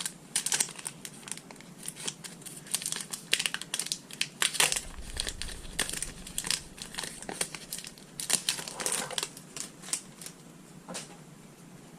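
Foil wrapper of a Pokémon card booster pack crinkling and tearing as it is opened, in quick irregular crackles that thin out near the end.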